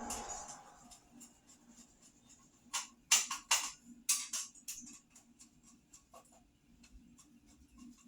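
Irregular clicks and light knocks from a vintage Tatung table fan's parts being handled and fitted together, with a short run of louder clacks about three to four and a half seconds in.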